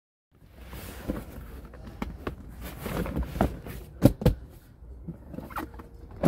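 Cardboard moving boxes and a boxed item being shifted and stacked in the back of a vehicle: scraping and handling noise, with two sharp knocks about four seconds in, over a steady low rumble.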